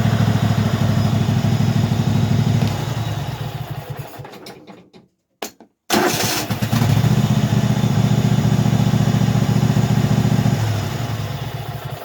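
Craftsman lawn tractor engine running, winding down to a stop about three to five seconds in; after a short silence it starts again with a sudden burst about six seconds in and runs steadily, then winds down again near the end. It now starts and runs after a faulty carburetor fuel shut-off solenoid was replaced.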